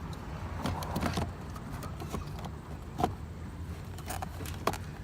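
Hard plastic clicks and knocks as interior car-door trim parts are handled and pressed back into place: a few separate clicks, the sharpest near the end, over a steady low hum.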